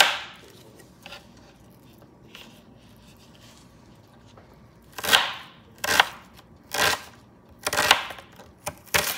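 Chef's knife cutting an onion on a cutting board: a few faint ticks at first, then five sharp knife strikes against the board, about one a second, in the second half.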